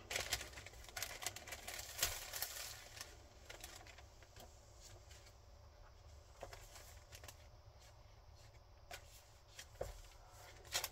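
Paper pages of a handmade journal rustling as they are turned and smoothed by hand, in scattered soft strokes. The rustling is busiest in the first few seconds, fades to a faint hush in the middle, and picks up again with a couple of sharper flicks near the end.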